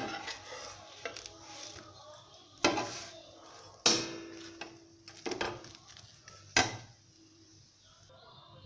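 Kitchen utensils and vessels clattering: about five sharp knocks and clinks, spaced a second or so apart, with lighter clinks between. The knock about four seconds in leaves a short ringing tone, like a struck metal pot.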